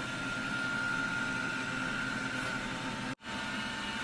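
Roomba Vac Essential robot vacuum running a spot clean: a steady motor and suction whir with a high whine. About three seconds in it cuts out for an instant and comes back with a slightly different pitch.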